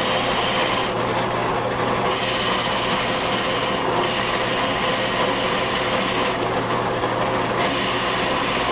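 Benchtop drill press running with a steady motor hum while a dowel-cutting bit is fed slowly into very hard ash, giving a continuous grinding cut. The cutting noise eases briefly twice, about a second in and again near the seven-second mark.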